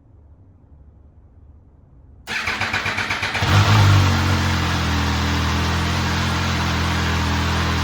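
2019 MV Agusta Turismo Veloce's three-cylinder engine on its stock exhaust, cold-started: after about two seconds of quiet the starter cranks for about a second, the engine catches with a brief rise in revs, then settles into a steady idle.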